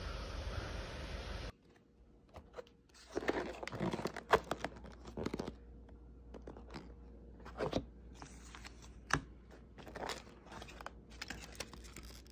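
Steady wind noise on the microphone, cut off suddenly about a second and a half in. Then cardboard chicken delivery boxes and crumpled aluminium foil being handled: irregular crinkling, rustling and light taps, busiest a few seconds later.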